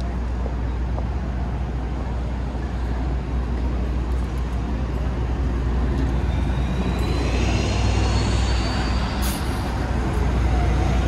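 City street traffic: a steady low rumble of engines. From about seven seconds in, a rising squeal with a growing hiss ends in a short sharp hiss about nine seconds in.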